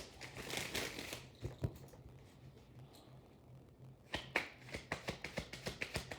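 Tarot cards being handled: the soft rustle of a shuffle tailing off, then a few light clicks, and from about four seconds in a quick run of sharp taps and flicks as cards are handled on a surface.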